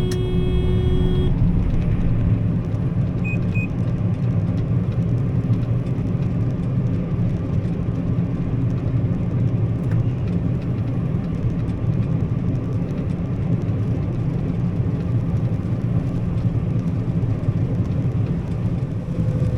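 Combine harvester cutting soybeans, heard from inside the cab: a steady low engine and machinery drone. A pitched tone sounds over it and stops about a second in.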